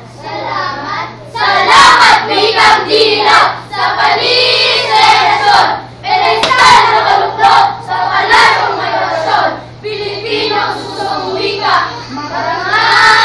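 A group of children singing together in unison, in phrases broken by sharp hand claps.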